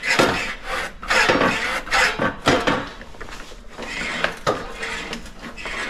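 Battery-powered snowblower's discharge chute deflector being worked up and down by hand: an irregular run of plastic clicks, scrapes and clunks from a pivot that needs grease.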